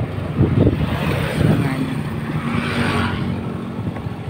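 Motorcycle engine running at low road speed, a steady hum that settles a little lower in pitch in the second half as the bike slows.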